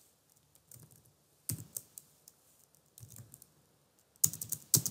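Computer keyboard typing: scattered single keystrokes, then a quick run of keystrokes near the end.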